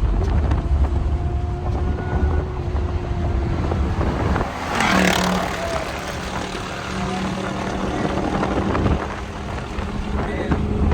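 Dodge Charger Scat Pack's 392 HEMI V8 running as the car is driven, a steady low rumble. About five seconds in there is a brief louder rush of noise.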